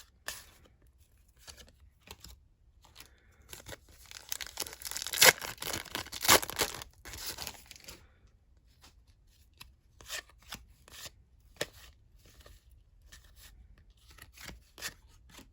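A trading-card pack wrapper being torn open, a dense papery rip lasting a few seconds. After it come scattered light clicks and rustles as the cards are handled.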